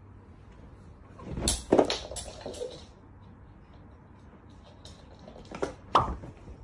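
Knocks and clattering, one burst about a second and a half in and another, with the loudest knock, near six seconds in.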